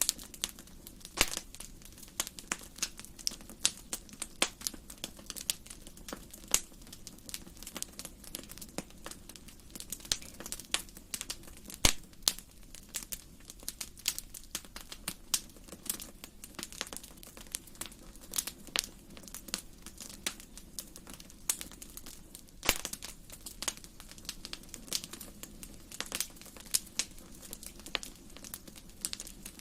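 Wood fire crackling in a fireplace: many irregular sharp pops and snaps, a couple of them louder, over a soft steady low rush of the flames.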